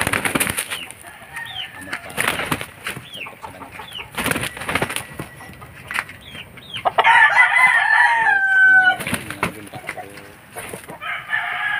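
Gamecock flapping and scuffling in short bouts during exercise, then a rooster crows loudly for about two seconds, the call dropping in pitch at its end; another crow begins near the end.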